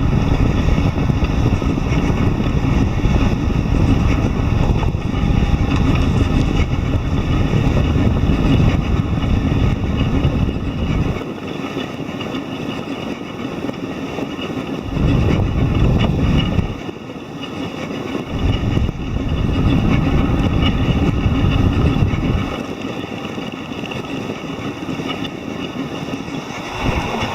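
Delta 3D printer's stepper motors running, a steady low rumbling hum that falls quieter and picks up again several times.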